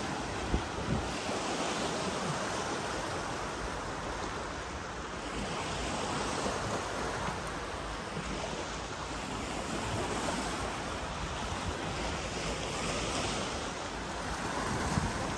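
Lake water washing against the shore in slow swells, with wind on the microphone and two brief knocks about half a second in.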